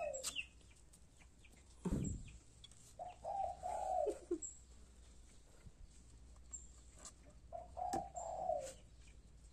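A dove cooing in phrases about a second long, each dropping in pitch at its end and repeating every four seconds or so, with a dull thump about two seconds in.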